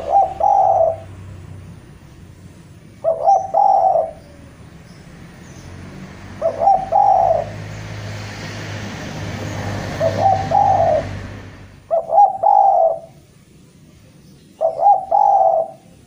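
Spotted dove cooing: six repeated call phrases, each about a second long with a short stuttering start, every two to three seconds. This is the bird's calling to challenge a rival.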